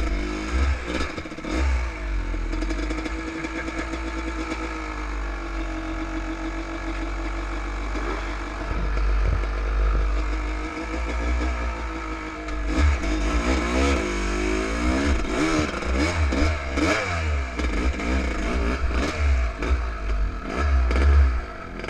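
Enduro motorcycle engine running under a rider's throttle. It holds a fairly steady note for several seconds, then revs up and down in quick swings over the second half. Clattering knocks and a heavy low rumble run throughout.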